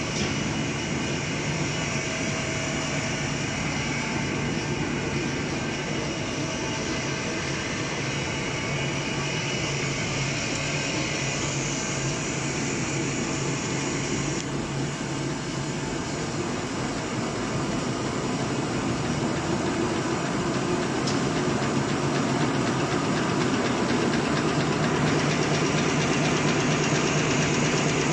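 Napkin paper folding and two-colour printing machine running, a dense, steady mechanical noise. It grows louder over the second half as the machine is brought up from about 265 to about 511 sheets a minute.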